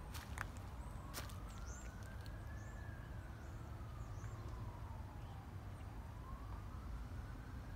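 A siren wailing, its pitch slowly rising and falling about once every five seconds, over a steady low rumble. A few sharp clicks come in the first second, and faint high chirps follow soon after.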